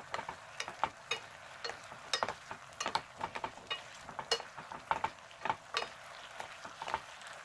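Two wooden spatulas stirring and tossing chicken drumettes through a thick, bubbling soy-chili glaze in a coated pot. Irregular clicks and taps of wood on the pot and meat, about two or three a second, sound over a faint sizzle of the reducing sauce.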